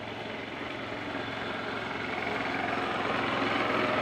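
A motor engine droning steadily, growing gradually louder.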